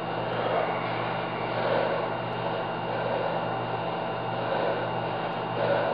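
A steady mechanical hum, with a few short swells of a man breathing hard as he strains to bend a steel bar by hand.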